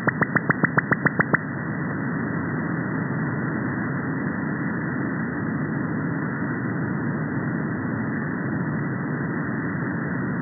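Radar pulses received through a software-defined radio in upper sideband around 35 MHz, heard as a rapid, even train of clicks at about nine a second. The uploader believes the signal comes from an Australian over-the-horizon radar. The clicks stop about a second and a half in, and steady receiver hiss follows.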